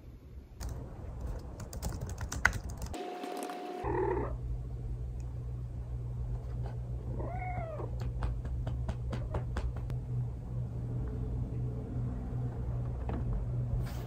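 A domestic cat meowing, with a rising-then-falling meow about seven seconds in, over the clicking of a computer keyboard being typed on.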